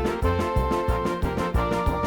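Upbeat music with a quick, steady bass beat and held keyboard-like notes.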